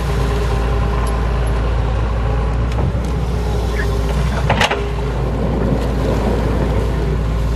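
Doosan DX140 wheeled excavator's diesel engine running steadily under hydraulic load while it digs and swings its bucket. A sharp clank sounds once about four and a half seconds in.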